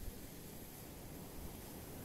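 Faint steady background noise: a soft hiss with a low rumble, with no distinct sound standing out.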